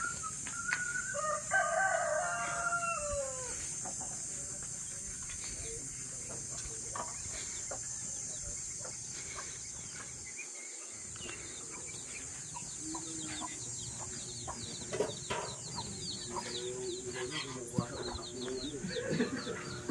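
Rooster crowing once, about a second in: one long call that falls in pitch at the end.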